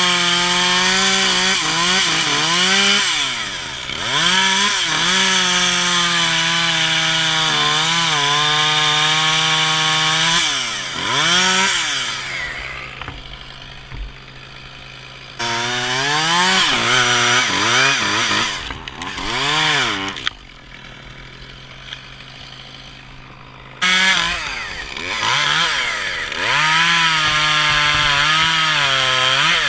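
Echo CS-271T top-handle two-stroke chainsaw cutting spruce wood, its engine pitch rising and sagging under load. Twice, around the middle and again about two-thirds through, it drops back toward idle before revving up to cut again.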